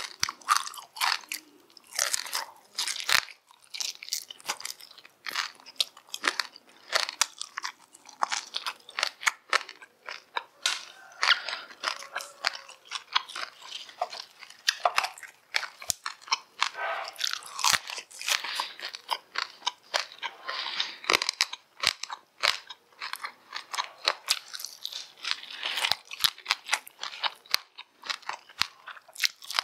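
Close-miked chewing and crunching of crispy fried meat and bone: a rapid, irregular run of sharp crunches.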